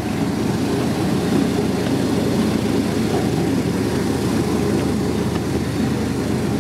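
Miniature railway train, a small-scale Class 55 Deltic locomotive, running along the track with a steady engine drone and the rumble of the passenger cars' wheels, heard from a car behind the locomotive.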